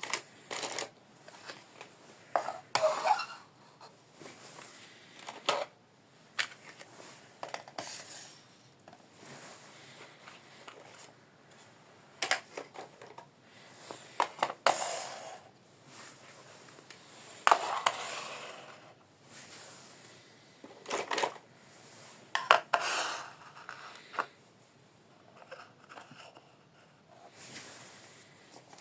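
Small plastic toy kitchenware being unpacked and handled: irregular light clicks and clatter of plastic pieces, with short crinkling rustles of packaging every few seconds.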